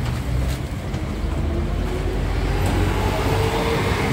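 A motor vehicle's engine running steadily, with a faint tone that rises gently about two seconds in.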